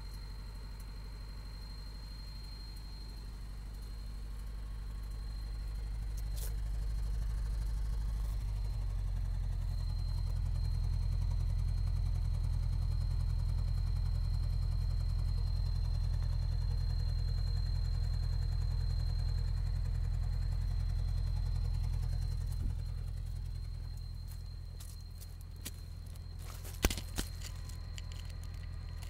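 Toyota 22RE 2.4-litre four-cylinder engine running, speeding up over a few seconds, holding a higher speed, then dropping back toward idle near the end. The owner suspects a timing chain or rod knock in this engine.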